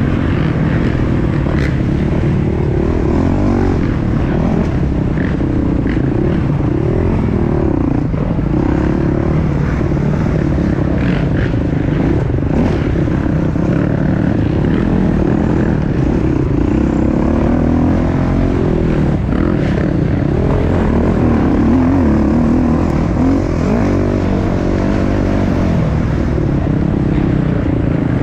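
Dirt bike engine revving up and down as it is ridden over an off-road race course, heard from on board the bike, with occasional knocks and clatter.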